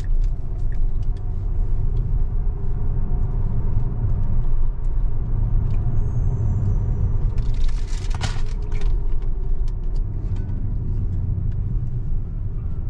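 Steady low road and tyre rumble heard inside the cabin of a Tesla electric car as it drives, with a brief louder rush of noise about eight seconds in.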